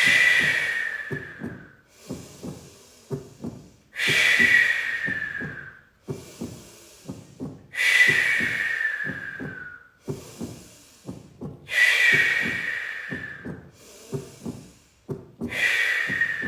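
Forceful breaths out through the mouth, one about every four seconds. Each is a loud rushing exhale that fades and falls in pitch over about two seconds, over a low, steady thumping beat.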